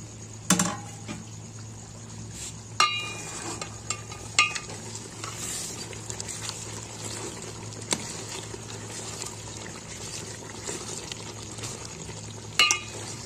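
Steel ladle stirring mutton stew through thin, watery gravy in an aluminium pot, with several sharp metallic clinks as the ladle strikes the pot, over a steady low hum.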